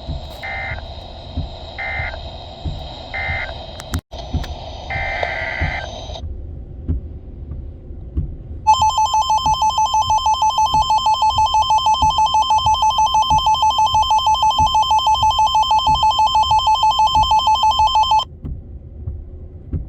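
Emergency Alert System tones received over the radio. First come three short data bursts about a second apart, the pattern of an end-of-message code, then a longer data burst that cuts off. About nine seconds in, a loud, rapidly pulsing two-tone EAS attention signal starts and holds for about ten seconds before stopping abruptly.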